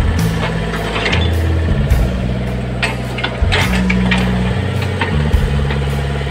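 Old Kobelco mini excavator's diesel engine running, its pitch stepping up and down as the hydraulics take load, with short knocks and scrapes of the bucket working stone.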